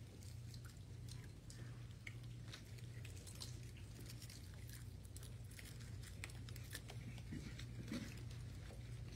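Small scattered crinkles and clicks of prepackaged plastic communion cups being handled and the wafers eaten, over a steady low hum, with a soft bump about eight seconds in.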